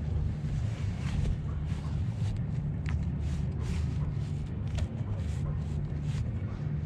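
Steady low wind rumble on the microphone, with scattered clicks and rustles as a lidded bowl of bait is opened and handled.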